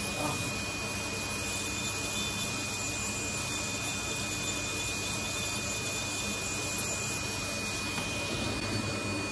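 Podiatry nail drill running steadily with a constant high whine, grinding down a thickened ram's-horn toenail (onychogryphosis).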